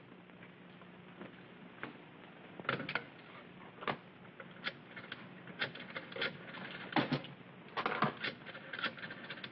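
Scattered light clicks and knocks of objects being handled on a wooden desk, about a dozen at irregular intervals, bunching together about eight seconds in.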